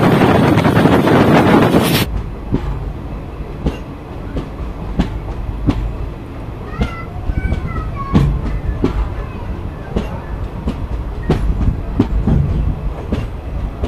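Wind buffeting the microphone at an open coach door for about two seconds. Then the slow, irregular clickety-clack of a passenger train's wheels over rail joints and points as it runs into a station, with a few short high squeaks about seven seconds in.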